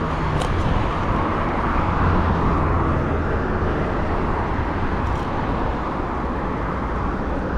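Riding noise from a bicycle's handlebar-mounted camera: a steady rush of wind and rolling noise with the hum of road traffic alongside.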